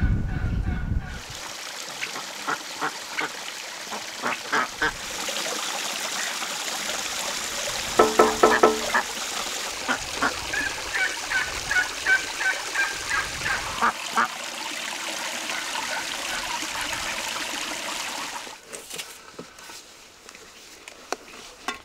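Domestic waterfowl calling over a steady hiss, with a run of loud honking calls about eight seconds in. The calling stops near the end.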